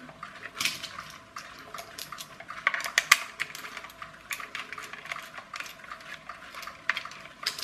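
Small metal hand tool clicking and scraping against the hard plastic gearbox and body of a clockwork toy car, a run of irregular light clicks, loudest around three seconds in.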